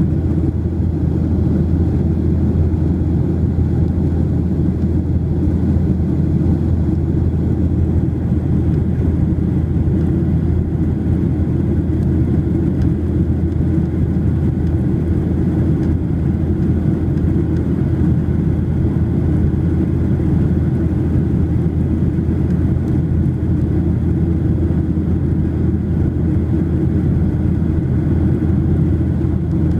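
Steady cabin noise of a Boeing 737-800 in flight, heard from inside the cabin: the low, even drone of its CFM56-7B turbofan engines and the rush of air along the fuselage.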